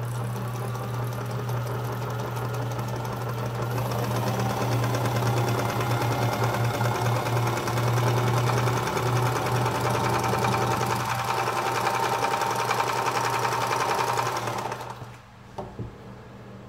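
Vintage Sew-Rite electric toy sewing machine running and stitching: a steady motor hum under a fast needle clatter. It stops near the end, followed by a couple of small clicks.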